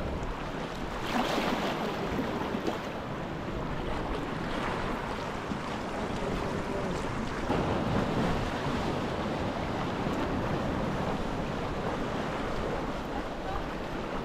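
Sea water sloshing and lapping around a sea kayak, with waves washing against the rocks at the foot of a cliff and wind on the microphone. The water noise is steady and swells a little about a second in and again around eight seconds in.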